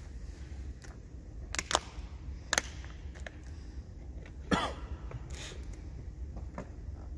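Quiet pause in a church congregation: a few short knocks and a cough, the loudest about four and a half seconds in, over a steady low hum.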